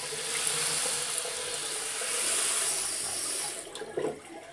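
Water running steadily from a bathroom sink's single-lever mixer tap into the ceramic basin, opened to check for air left in the pipes of a newly installed water heater. The flow cuts off near the end, followed by a short knock.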